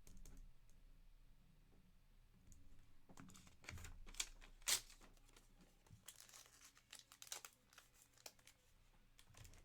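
Faint handling noise of trading cards and their plastic holders: scattered clicks and crinkling rustles, with one sharper click about halfway through.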